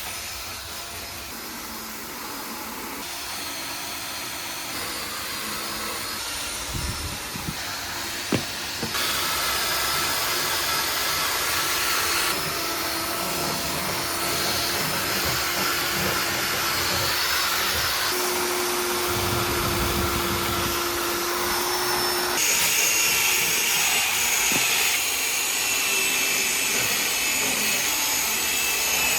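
Cordless drill spinning a scrubbing brush against plastic body cladding, running steadily, its pitch and tone changing abruptly several times, with a couple of short clicks about seven to eight seconds in.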